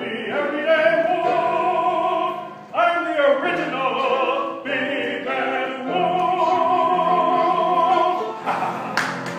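Operatic singing: a trained voice holding long notes with a wide vibrato, in several phrases with short breaks. Clapping begins right at the end.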